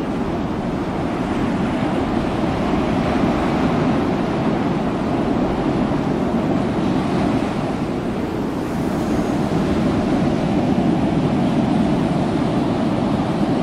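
Steady rushing noise of wind on the microphone and sea wash, with no distinct events.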